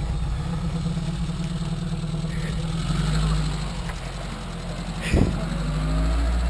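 Vehicle engine idling steadily at an even pitch, with a single sharp knock about five seconds in.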